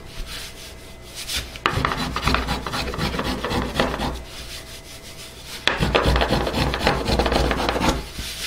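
Quick back-and-forth strokes of a small hand tool shaving wood from a carved maple guitar top, in two runs with a short pause between.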